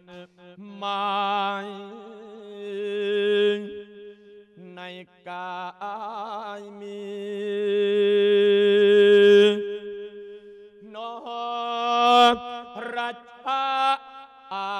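Thai Buddhist monk singing a lae sermon, the melodic chant that sends off the spirit of the dead. It comes as long held notes with wavering vibrato, in phrases of a few seconds with short breaths between.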